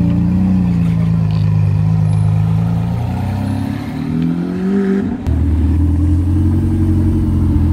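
A supercar's engine running at a low, steady pitch, then revving up with a rising pitch for about two seconds from three seconds in, dropping back suddenly to a low steady rumble just after five seconds.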